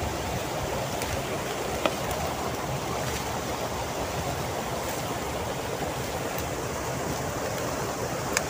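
River water rushing steadily, with a faint click near the end.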